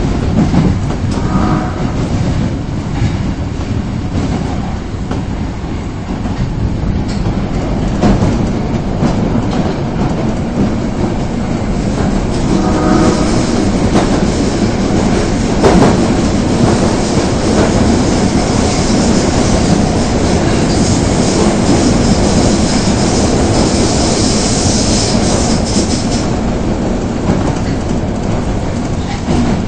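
Subway train running between stations, heard from inside the car: a steady rumble of wheels on rail with clicking over the rail joints. A high wheel squeal rises from about 18 s in and fades near 26 s.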